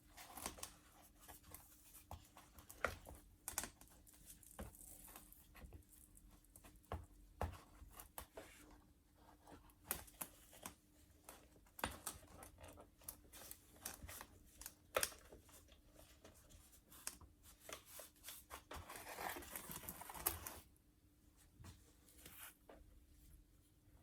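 Hands handling small parts at a workbench: scattered light clicks and taps, with a longer stretch of scraping and rustling about three quarters of the way through, under a faint steady hum.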